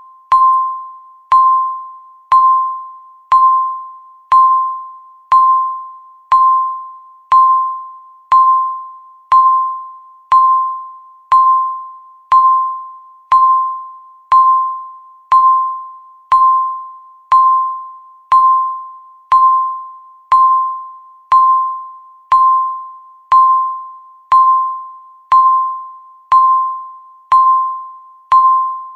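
Countdown timer beep: one electronic tone sounded once a second, each beep struck sharply and fading away before the next, marking off the seconds.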